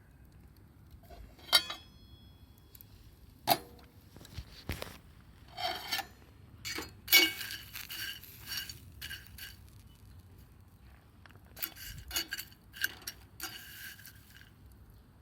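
Intermittent clinks and clatter of small hard objects being handled, some strikes leaving a short metallic ring, with a busier run of clinks in the middle and again near the end.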